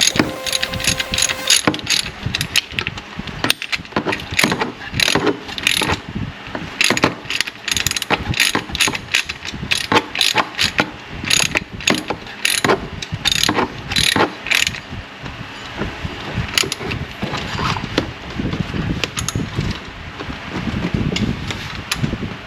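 Ratchet wrench clicking in quick runs of strokes as the new idler pulley's bolt is tightened; the clicks thin out over the last several seconds.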